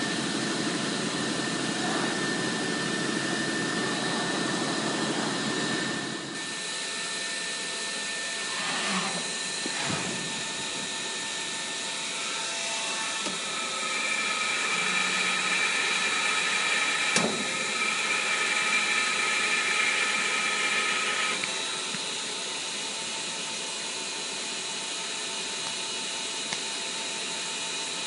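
FMS ISX-32 CNC vertical machining center running: a steady whirring with a faint steady whine over it. A lower hum drops out about six seconds in. Midway a higher whine comes in for about seven seconds, with a sharp click partway through it.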